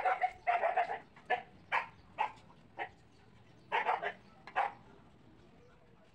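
A dog barking repeatedly in short, sharp barks, a quick run of them at the start and another a little before halfway, then quiet.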